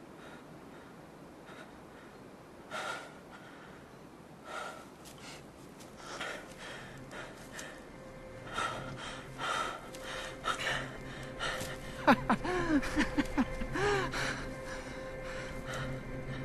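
Breathy gasps, a few seconds apart at first and then coming closer together. About twelve seconds in comes a cluster of wavering, swooping moan-like cries, over a thin steady tone and a low drone that swell toward the end, as the score builds.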